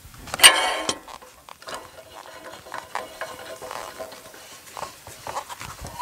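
Heavy hemlock cant being shifted by hand on the steel bed of a Wood-Mizer LT15 Go sawmill: a loud, short squeal about half a second in, then light knocks and scrapes, and another short squeak near the end.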